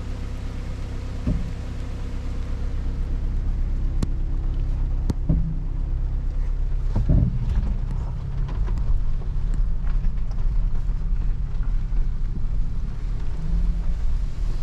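A car driving, heard from inside: a steady low engine and road rumble that gets a little louder after a couple of seconds, with a few sharp knocks and rattles.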